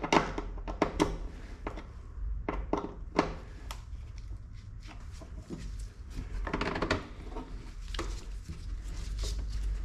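Scattered clicks and knocks of parts and tools being handled during work on a car door, with a longer scraping rustle about six and a half seconds in.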